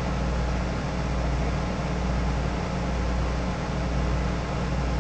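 Steady hiss with a low hum underneath, unchanging throughout: background noise of the recording, like a fan or room noise picked up by the microphone.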